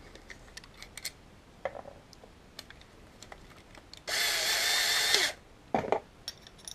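Black & Decker EGBL108 cordless drill's motor running briefly for just over a second, a steady whine that winds down as it stops. A few light clicks and knocks come before and after it.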